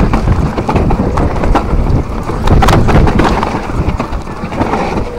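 Mountain bike rattling down a rough dirt singletrack at speed: tyres on dirt and roots, with frequent irregular knocks and clatter from the bike over a steady low noise.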